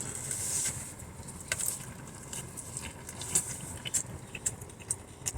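Scattered small clicks and crackles of eating and handling, over a steady low hum.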